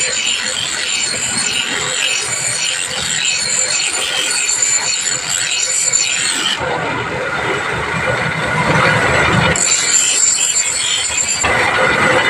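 A belt-driven grinding wheel grinding a steel dagger blade: a steady, harsh rasp. For about three seconds past the middle the tone turns lower and duller as the blade is shifted on the wheel.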